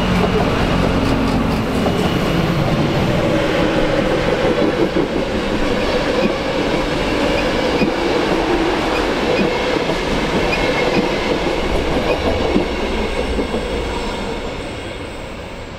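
A train passing close by, its wheels knocking on the rails, growing fainter over the last couple of seconds.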